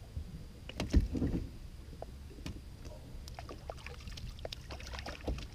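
A small smallmouth bass splashing and thrashing at the surface beside an aluminum boat as it is reeled in, in a run of short splashy ticks in the second half. A single dull thump about a second in is the loudest sound.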